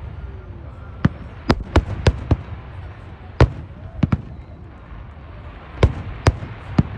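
Aerial fireworks bursting: about a dozen sharp bangs at uneven intervals, several in quick clusters, over a steady low rumble.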